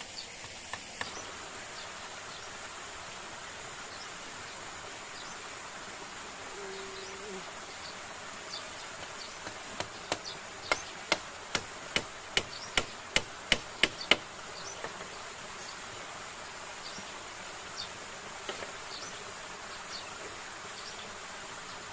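Steady buzz of forest insects over a constant hiss, broken about ten seconds in by a quick run of about a dozen sharp knocks, roughly three a second and growing louder, like hammering on wood.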